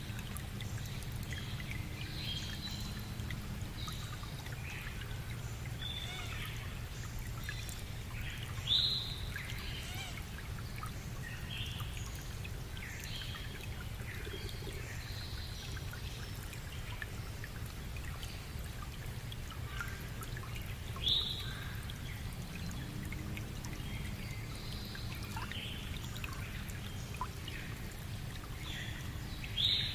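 Birds calling in bushland with scattered short chirps over a steady low background rumble. A louder, sharp call stands out about every ten seconds.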